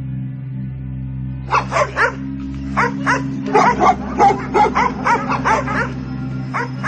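Dog yipping and whimpering: a quick series of short, high calls with bending pitch, starting about a second and a half in, over a steady low drone.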